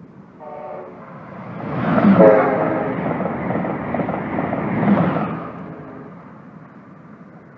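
Electric passenger train passing through the station at speed, its horn sounding in two short blasts, the first about half a second in and the second about two seconds in as it draws level. The rush of the passing cars then fades out over the last couple of seconds.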